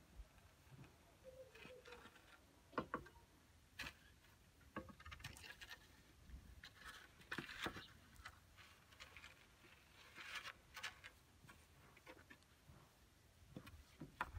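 Faint, scattered rustling and crackling of dry plant stalks, dead leaves and small stones as a cat steps and paws through them, with short clicks here and there.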